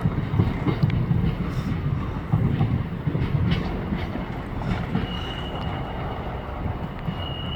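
Train moving along the track, its wheels running with a low rumble and irregular knocks, and a thin, high wheel squeal that comes in about five seconds in.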